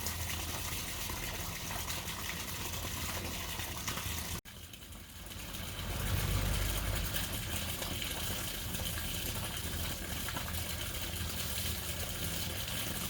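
Steady sound of running water splashing into a garden pond. It cuts out abruptly about four seconds in, then fades back up.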